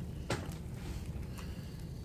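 Wood fire crackling: scattered small pops over a steady low rumble of burning logs, with one sharper crack about a third of a second in.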